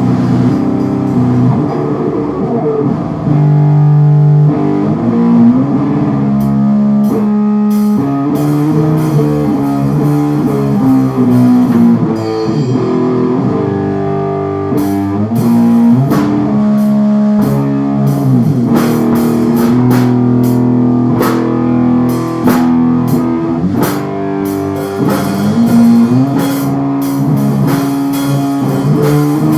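Instrumental rock music: electric guitar chords with bass, and a drum kit whose hits grow busier about halfway through.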